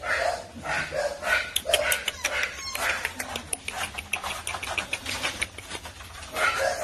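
American Bully puppy yapping in short, quick yelps, then a run of fast clicks and taps, with the yapping picking up again near the end.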